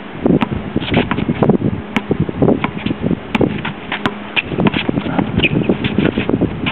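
Basketball bouncing on an outdoor hard court as a player dribbles, a few sharp knocks a second, with wind rumbling on the microphone.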